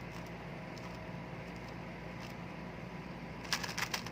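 Rubik's cube being turned through an algorithm: faint plastic clicks of the layers, then a quick run of louder clicks near the end, over a steady background hum.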